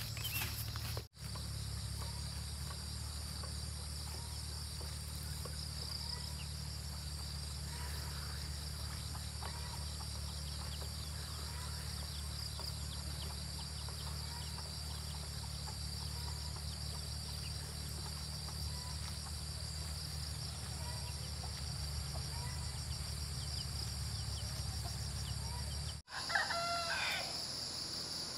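Insects chirring steadily over a low hum, with faint scattered chirps, and a rooster crowing once near the end.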